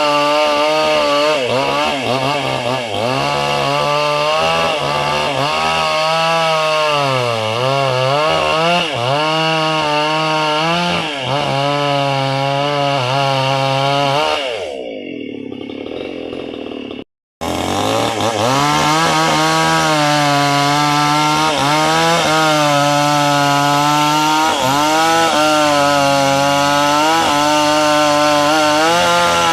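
Two-stroke chainsaw running at high revs, cutting into wood, its pitch dipping again and again as the chain bogs under load. About halfway through the revs fall away and the sound breaks off for a moment, then the saw is back at full throttle.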